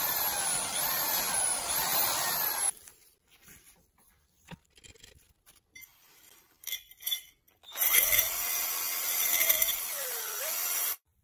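Electric drill boring into a steel hex nut, its pitch rising and falling, for nearly three seconds, then a few quiet clicks and knocks of handling. About eight seconds in, a homemade wire brush of frayed steel cable, spun on a threaded rod, scrapes loudly inside a rusty steel pipe for about three seconds and cuts off suddenly.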